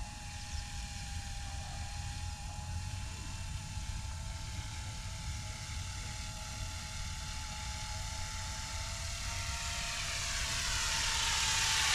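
Goosky E2 200-size scale RC helicopter in flight: a steady motor and rotor whine with a rotor hiss, growing louder near the end as it comes in close. Wind rumbles on the microphone underneath.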